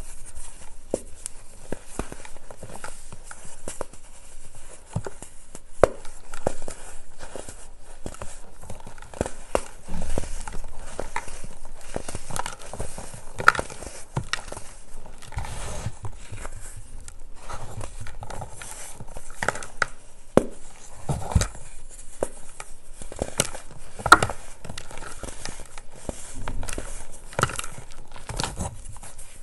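Hands crushing pressed baking soda discs, the chalky blocks crunching and crumbling into powder that trickles into a plastic tub. It sounds like dense, irregular crackling made of many small sharp crunches, with a few louder snaps.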